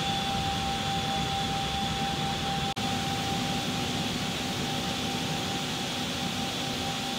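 Steady machine hum and air rush inside the cargo hold of a parked Airbus A400M, carrying two high, even whines, from the aircraft's onboard systems running. It breaks off for an instant a little under three seconds in.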